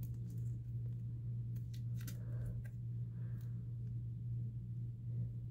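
Faint ticks and rustling of a trading card in a plastic sleeve being handled and turned over, over a steady low hum.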